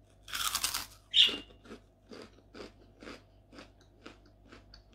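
A bite into a crisp white kerupuk cracker with a loud crunch, a second crunching bite about a second in, then steady crunchy chewing about twice a second.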